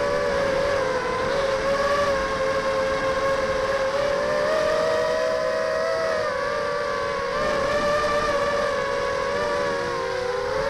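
Motors and propellers of a 250-size FPV racing quadcopter, heard from a camera mounted on the quad, whining steadily in flight. The pitch wavers gently with throttle and sags briefly about nine seconds in.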